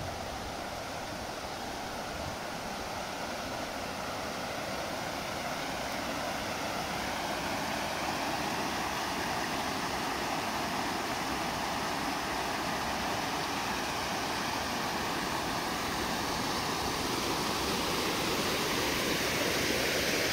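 Muddy rainwater rushing down a stone-lined channel and spilling over a small weir, a steady rushing that grows gradually louder.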